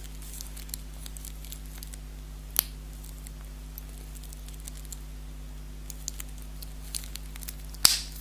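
Small clicks and handling sounds of a wristwatch being worked onto the wrist, scattered and light, with a sharper click about two and a half seconds in and the loudest click near the end.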